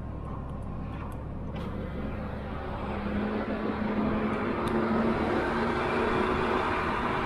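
Diesel pickup truck towing a loaded trailer: a steady engine drone with tyre and road noise. The noise grows a little louder about three seconds in, heard through the open cab window.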